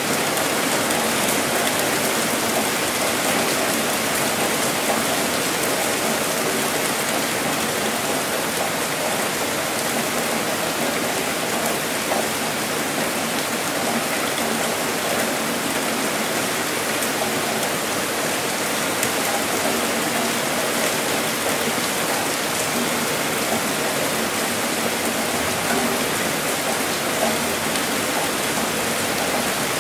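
Heavy rain falling steadily: a dense, even hiss of drops that keeps up without let-up.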